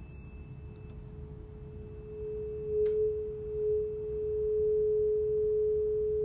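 A 426.7 Hz tuning fork rings one pure steady tone over a glass tube closed at one end. About two seconds in, the tone swells and then holds loud as the tube's air column reaches its quarter-wave resonance length.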